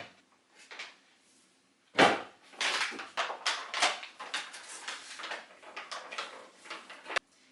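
A sudden knock, like a cupboard or container being opened, about two seconds in. Then a few seconds of clicking and rustling as dog treats are got out, which stops abruptly near the end.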